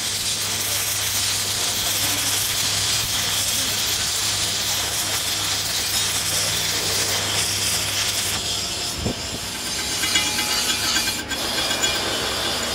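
Stick welding: the arc crackles and hisses steadily over a low hum, then stops about two-thirds of the way through. Near the end come light taps of a chipping hammer knocking slag off the fresh weld bead on the gear tooth.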